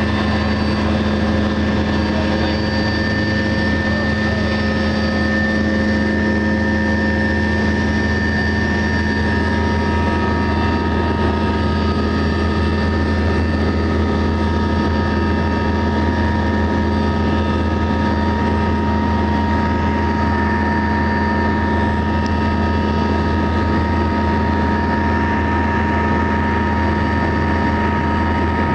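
Cabin noise of a Eurocopter AS332 Super Puma twin-turbine helicopter in flight: a steady drone with several high whining tones held constant over it.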